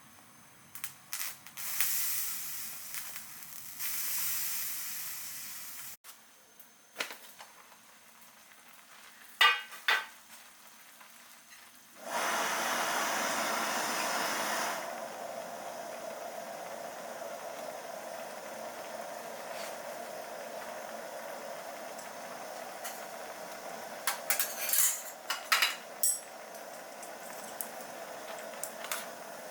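Food sizzling in a hot aluminium mess tin: it starts suddenly about twelve seconds in, loud for about three seconds, then settles to a steady sizzle. Clicks and knocks of utensils come before it and again near the end.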